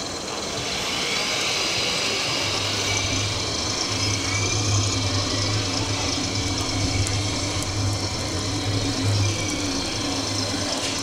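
Busy exhibition-hall background noise, with a low steady hum that sets in about two seconds in and drops out briefly now and then.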